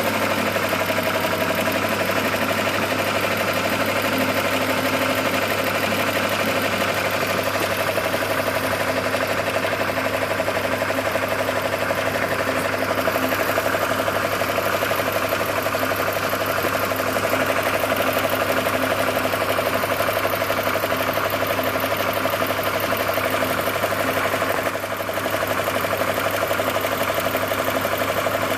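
Car engine idling steadily, with the transmission noise that appeared after a rebuilt torque converter was fitted running through it as a fast, even rhythm.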